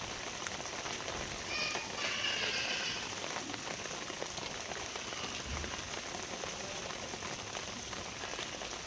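Steady rain falling, an even hiss with scattered drops, and a brief high-pitched call from about one and a half to three seconds in.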